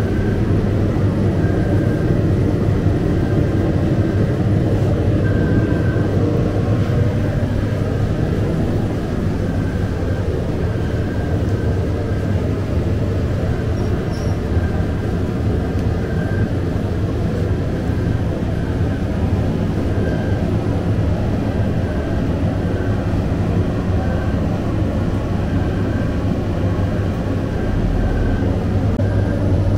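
Steady low drone of running bakery machinery, with a faint short high squeak repeating every second or so.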